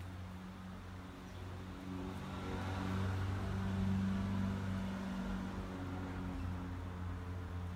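Steady low mechanical hum, swelling to its loudest about four seconds in and then easing off.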